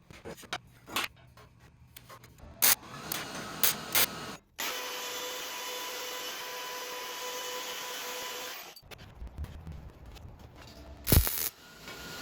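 Workshop work sounds: scattered clicks and knocks, then a power tool running steadily for about four seconds and stopping abruptly, and one sharp knock near the end.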